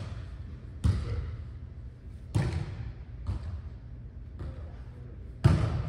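Sharp smacks of a volleyball being struck, ringing on in a large echoing hall: loud ones about a second in, two and a half seconds in and, loudest, near the end, with a fainter one between.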